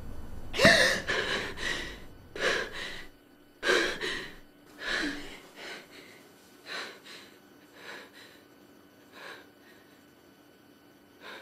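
A young woman gasps sharply, then breathes in short, heavy, panting breaths that come further apart and grow quieter over several seconds, with one more breath near the end.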